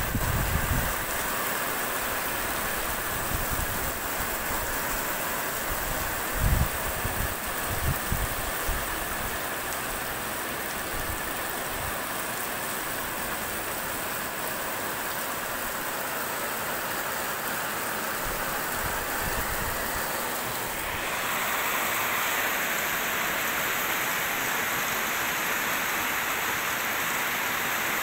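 Heavy rain pouring onto a street, a steady hiss, with a few brief low thumps in the first several seconds. About three-quarters of the way through, the rain noise turns slightly louder and brighter.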